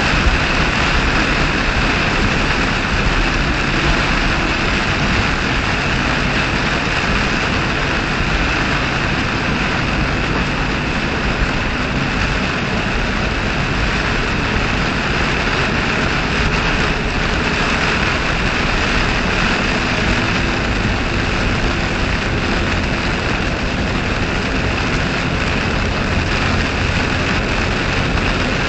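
Heavy thunderstorm rain and wind beating on a car driving at highway speed, heard from inside the cabin: a loud, steady rush of rain on the windshield and roof mixed with tyre noise on the wet road.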